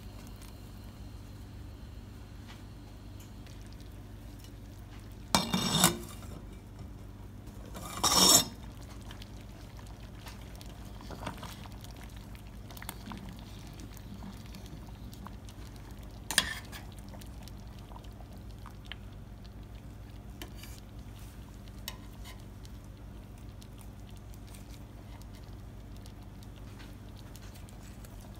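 A wooden spoon stirring soup in a stainless steel pot, knocking and scraping against the pot's side in a few strokes, the loudest about five and eight seconds in. A steady low hum runs underneath.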